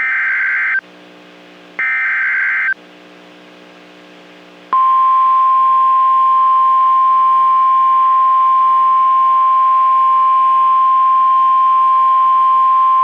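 NOAA Weather Radio alert tones: the last two of the three SAME header data bursts, each about a second long and a second apart, then the steady single-pitched 1050 Hz warning alarm tone starting about five seconds in. These are the coded signals that set off weather radio receivers, here heading a severe thunderstorm watch.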